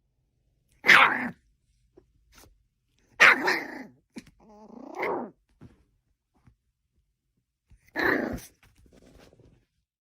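A dog barking: three short barks a few seconds apart, with a longer call rising in pitch between the second and third.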